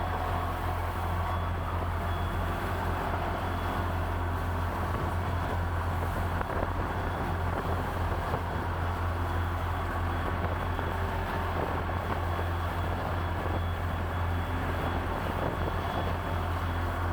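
A boat's engine running steadily under way, a constant low drone with water and wind noise above it.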